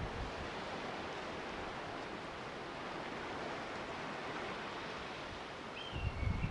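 Steady rushing of wind. Near the end a faint whistled bird call sounds, stepping down in pitch, while gusts rumble on the microphone.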